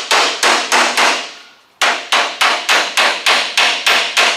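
Hammer blows on a car's sheet-metal quarter panel, folding and forming a repair piece into place, each strike ringing. A quick run of about five blows, a short pause, then steady blows about four a second.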